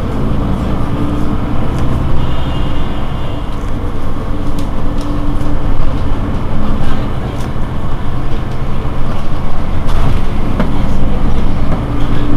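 Mercedes-Benz Citaro G C2 articulated city bus standing at a stop with its engine idling in a steady low hum, and a few light clicks.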